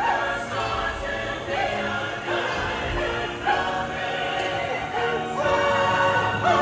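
Music with sung voices holding and gliding between notes over an accompaniment.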